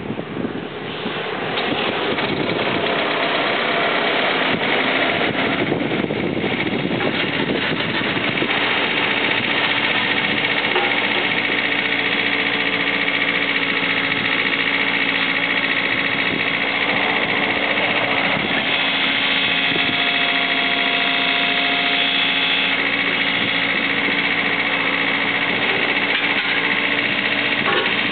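Kubota KX91-2 mini excavator's diesel engine running while the boom and bucket are worked. It rises over the first couple of seconds and then holds steady.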